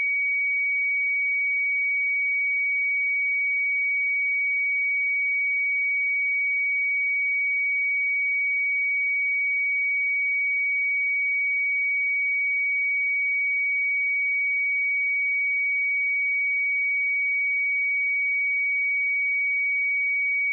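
Pure 2258 Hz sine test tone, one steady high-pitched note held at constant level.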